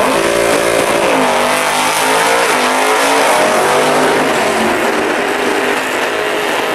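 A 1968 Camaro drag car and a second muscle car launching from the start line and running down a drag strip side by side at full throttle, engines loud, their pitch rising and dropping several times.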